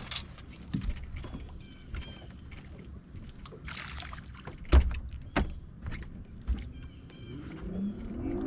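Scattered knocks and thumps on a bass boat's deck as anglers move about fighting a hooked fish. The loudest is a sharp low thump about halfway through, followed by a second one soon after.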